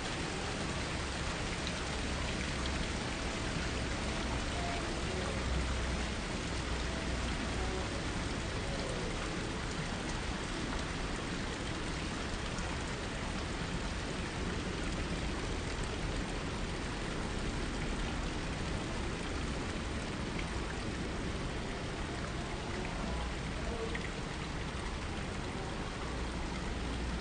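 Water splashing steadily from tiered stone garden fountains into their basins, with a low rumble that comes and goes.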